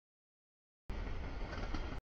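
CSX double-stack container freight train passing over a grade crossing: a steady rumble of wheels on rail. The audio drops out to dead silence for about the first second before the rumble cuts back in.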